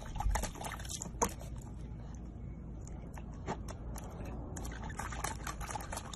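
A corgi puppy dipping its muzzle into water in a small plastic tub: irregular wet splashes, drips and lapping clicks over a low steady rumble.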